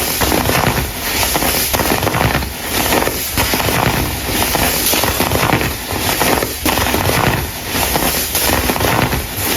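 Dense crunching and crackling of dried, colourful baking soda crumble being crushed, coming in repeated waves a little more than once a second.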